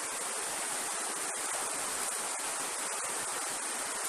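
River water rushing steadily over stones: an even, unbroken hiss.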